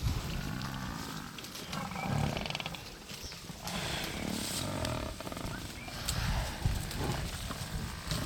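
Lions growling in several bouts while feeding on a young buffalo carcass.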